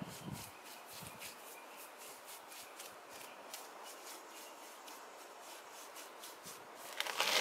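Brush strokes scraping over a cement baluster: a quick run of short, dry strokes, several a second, with a louder scrape near the end.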